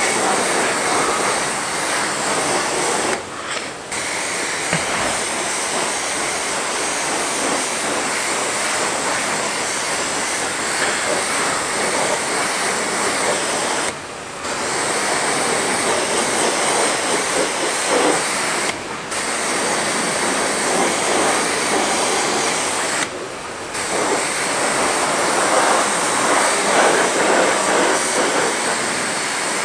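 Self-service car wash pressure lance spraying a jet of water onto a motorcycle, a steady hiss and spatter. It breaks off briefly four times.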